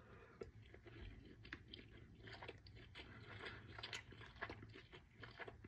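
Faint chewing: a person eating a bite of barbecue meatloaf, with many small, irregular mouth clicks and smacks.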